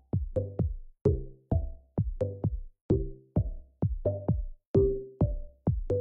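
Electronic background music with a steady drum-machine beat, about two hits a second, and pitched bass and synth notes under each hit.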